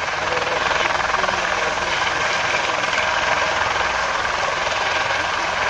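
Several Eurocopter EC120 Colibri helicopters running with rotors turning as they lift off, a steady blend of turbine and rotor noise with a fast rotor beat. Each is driven by a single turboshaft engine.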